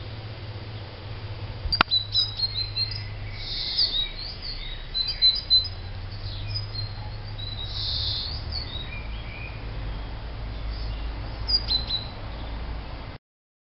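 Great tits calling around the nest: clusters of high-pitched chirps and twitters, starting about two seconds in just after a sharp click and coming in bursts until near the end, over a low steady hum. The sound cuts off suddenly shortly before the end.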